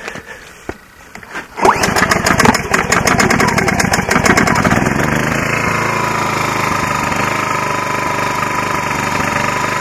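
Ryobi inverter generator's small engine pull-started while still warm, choke set to run. It fires about a second and a half in, runs fast and uneven for a few seconds, then settles into a steady run.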